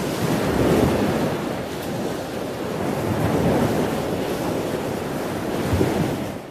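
Ocean surf washing on a beach, a steady rush of waves that fades out near the end.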